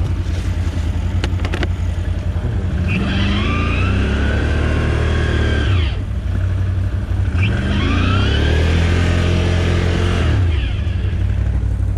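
ATV engine revved hard twice, each time for about three seconds, the pitch climbing and then dropping back to idle, with a few sharp clicks early on. It is typical of a rider trying to power out of soft ground where the quad has sunk.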